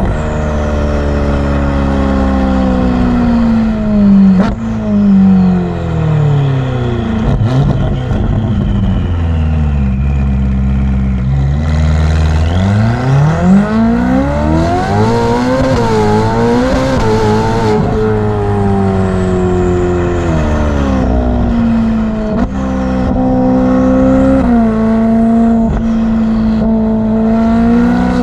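Ferrari F8's twin-turbo V8 exhaust: the engine note falls in pitch, rises again with a wavering pitch about halfway through, then drops and settles with small steps. Faint high whistles slide down in pitch several times, the turbos spooling down.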